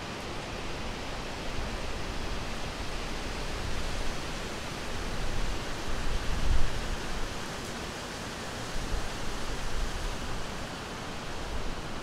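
Steady wind noise with deep, rumbling gusts that swell about halfway through and again near the end.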